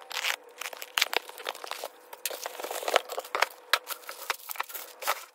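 A cardboard shipping box being unpacked by hand: packing tape ripping off and the box flaps pulled open, then a clear plastic bag crinkling as the item inside is unwrapped, in a run of irregular crackles and rustles.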